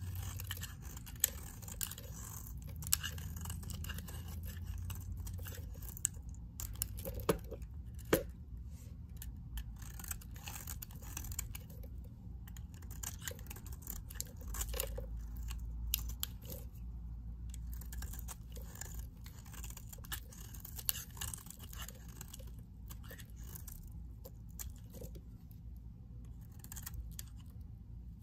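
Snap-off utility blade shaving curls off a bar of white soap: a dense, irregular run of small scraping crackles, with a few sharper clicks in the first eight seconds.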